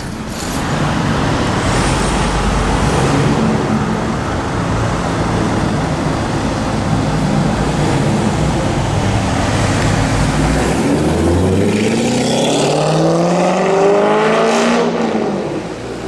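Modified Corvette V8 running with a loud, dense rumble, then accelerating hard about eleven seconds in, its pitch climbing steadily for several seconds.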